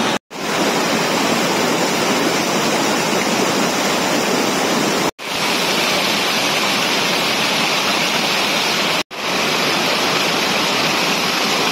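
Steady rush of a waterfall's cascade and rapids pouring over rocks and churning white around a person sitting in the flow. The sound cuts to silence briefly three times: just after the start, about five seconds in and about nine seconds in.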